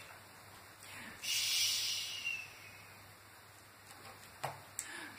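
A person making a long shushing "chhht!" about a second in, then a few short clicks and rustles of a picture book's pages being handled near the end.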